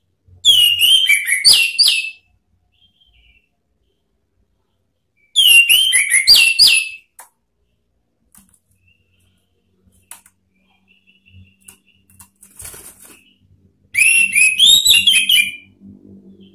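Orange-headed thrush singing three loud phrases of quick, rich whistled notes, a few seconds apart.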